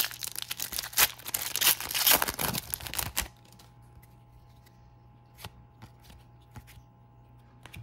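Foil trading-card pack wrapper torn open and crinkled for about three seconds, then a few soft clicks as the cards inside are handled.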